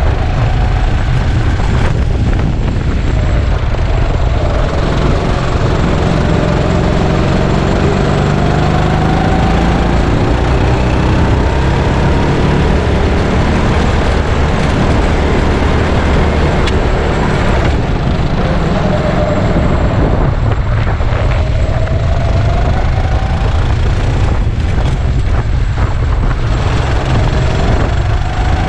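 Go-kart engine running hard on track, its pitch rising and falling again and again as the kart accelerates and slows, over a heavy low rumble.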